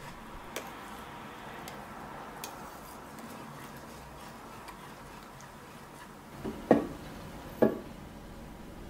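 Wire whisk stirring a thick, boiling milk pudding in a stainless steel pot, a steady scraping and swishing with small ticks of the wires against the pot. Near the end come two sharp knocks about a second apart.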